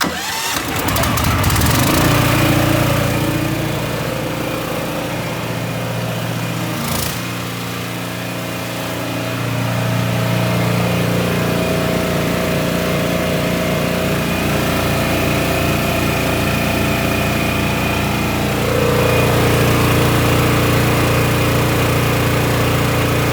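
Small gasoline engine of a pressure-washing skid's high-pressure unit starting up and running steadily. Its level rises and falls a few times, loudest around two seconds in and again in the last few seconds.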